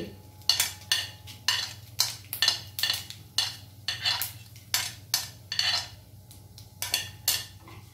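Metal spoon tapping and scraping repeatedly against a ceramic plate, about two sharp clinks a second, knocking whole cumin seeds into hot oil.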